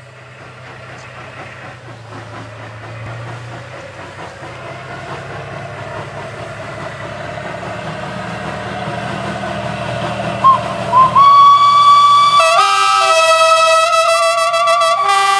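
A steam locomotive and a diesel locomotive approaching side by side on parallel tracks, their low running hum growing steadily louder. About ten seconds in a train whistle gives two short toots and then a longer held blast. Background music with a melody comes in near the end.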